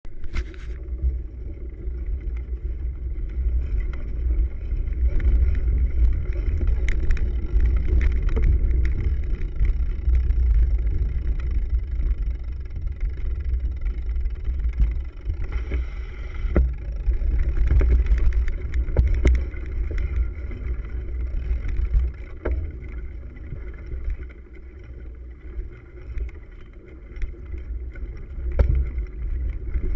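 Cyclo-cross bike ridden fast over grass and dirt, heard through a handlebar-mounted camera: a constant low rumble from the bike and tyres on the rough ground, with scattered knocks and rattles as it jolts over bumps. The rumble eases for a few seconds near the end.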